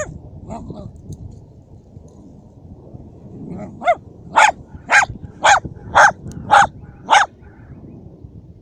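Dachshund barking while hunting a mouse: a run of seven barks, about two a second, starting about halfway through.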